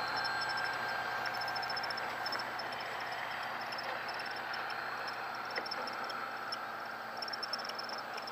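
Insects chirping in a steady, evenly pulsing high pattern over a constant broad hiss of open-air background.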